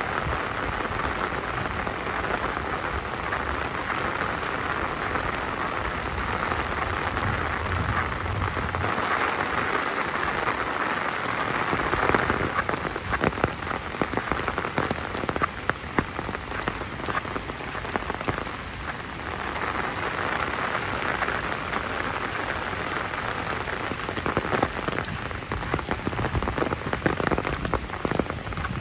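Steady rain falling, with sharp, close drop impacts pattering more densely through the second half.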